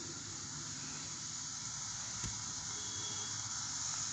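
Steady hiss from a film soundtrack played through a laptop speaker, with one faint click about two seconds in.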